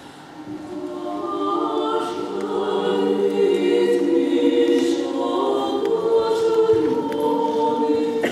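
Female vocal quartet singing sacred music a cappella, several voices holding notes together in harmony. The singing swells over the first couple of seconds and then stays full.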